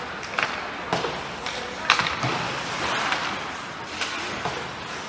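Ice hockey play on a rink: about five sharp knocks from sticks, puck and boards over the steady scrape of skates on the ice.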